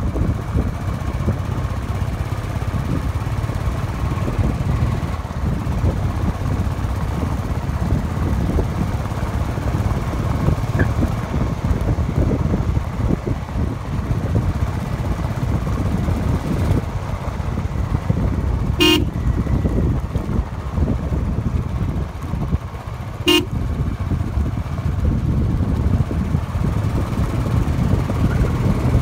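Motorcycle riding along at a steady pace, with its engine and heavy wind rumble on the microphone. Two short horn toots sound about four seconds apart, a little past the middle.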